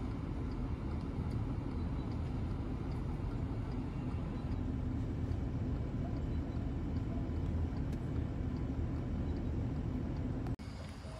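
Steady low rumble of a vehicle engine running, which stops abruptly near the end.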